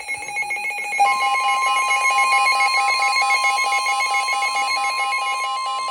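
Emergency Alert System warning tones. A rapidly pulsing electronic beeping runs throughout, and about a second in a steady, piercing alarm tone joins it and holds.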